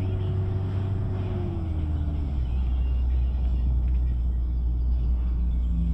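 Engine and road rumble of a ZR route-taxi minibus heard from inside the cabin while driving. A steady whine drops in pitch about two seconds in, and the low rumble deepens and gets a little louder after it.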